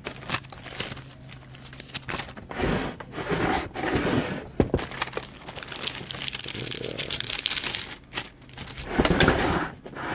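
Trading cards and their plastic and paper packaging being handled: irregular crinkling, rustling and scraping with sharp little clicks, louder in patches.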